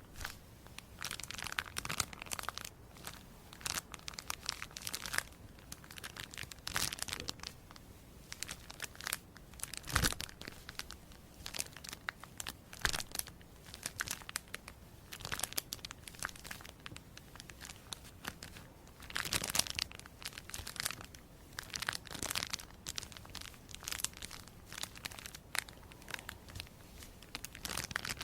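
Close, irregular crinkling and crackling of something crisp being handled or crushed, with a louder sharp crack about ten seconds in.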